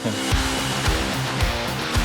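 Background music with strummed guitar and a steady beat, about two beats a second.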